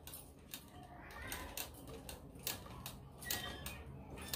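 Sewing machine stitching slowly through a fabric collar strip, its needle mechanism giving an uneven run of clicks, about two or three a second.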